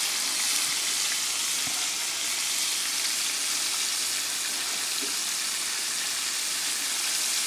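Floured pork steaks frying in hot oil in a steel pan: a steady, even sizzle.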